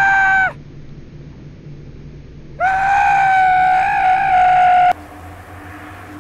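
A high, steady-pitched scream that breaks off about half a second in, then a second long scream of about two seconds that ends abruptly.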